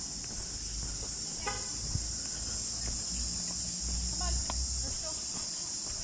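A steady, high-pitched drone of insects calling, with a low rumble underneath that swells about four seconds in.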